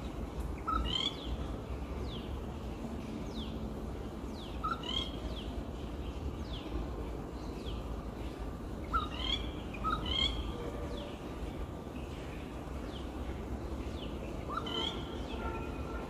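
Rufous treepie calling: about five short bursts of quick, ringing notes spaced a few seconds apart, over a steady low background rumble.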